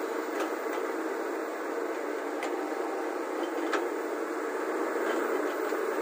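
Volvo crawler excavator's diesel engine running steadily under load while it works its boom and bucket over a tipper truck, with a few faint clicks.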